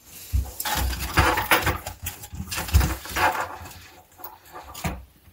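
Hands snapping a plastic locking clip onto a push-fit tube fitting and working the plastic tubing: irregular scratchy rustling and clicks in several bursts.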